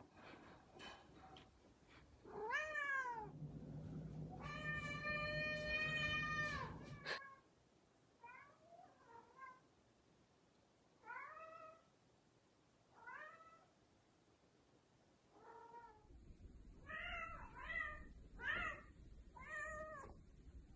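Golden British Shorthair cat meowing over and over. There is one meow about two seconds in, then a long drawn-out meow, then several short, fainter meows, and a quick run of meows near the end.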